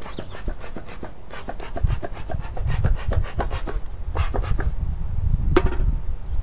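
Wooden beehive parts scraping and rubbing against each other as a feeder is worked out of a hive box: a quick run of small scrapes and knocks, with one sharp knock about five and a half seconds in.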